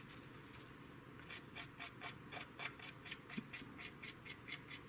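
Cotton swab rubbing back and forth over the painted plastic underside of a 1/48 model aircraft kit, wiping off excess panel-line wash. The faint scratchy strokes start about a second in and come quickly, about five or six a second.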